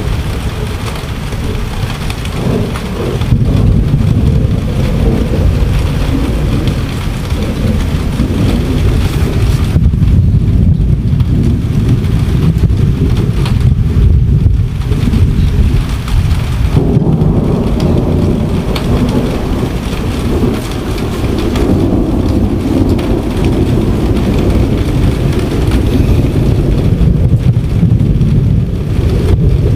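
Thunderstorm: rain falling with thunder rumbling low and continuously.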